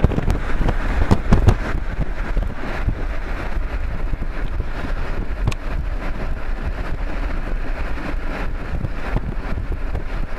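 Wind buffeting the microphone over the steady road noise of a moving car, with a few sharp gusts in the first second or so.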